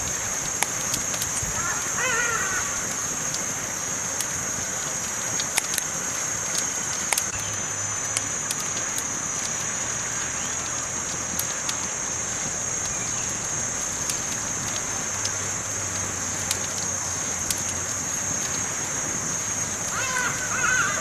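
Wood campfire crackling, with scattered sharp pops over a steady high-pitched hiss.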